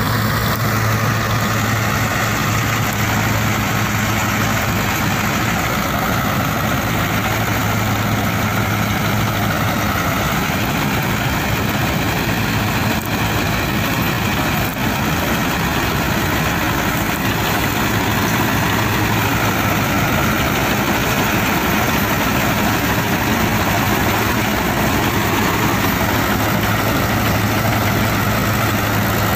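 Powertrac Euro 50 tractor's diesel engine running steadily under load, driving a PTO-powered Jagatjit straw reaper whose cutting and threshing machinery runs with it. The engine keeps a steady low drone throughout.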